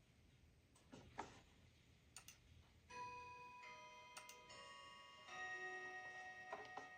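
Quiet keyboard keystrokes, a few clicks, then from about three seconds in soft steady tones at several pitches that change in steps every second or so, like faint chords.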